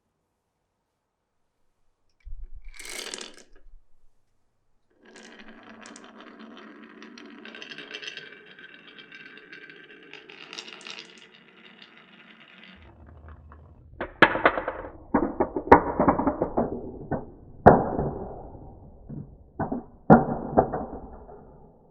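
Marbles running through a wooden marble run: a short rattle, then a steady rolling along the rails, then a run of loud sharp clacks and rattles over a low rumble as they drop and knock through the blocks and slopes.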